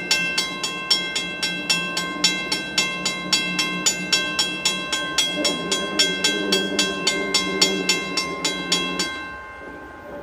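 Railroad grade-crossing warning bell ringing in a steady rhythm of about three strikes a second, each strike ringing on, over a lower steady tone, as a train approaches; the bell stops about nine seconds in.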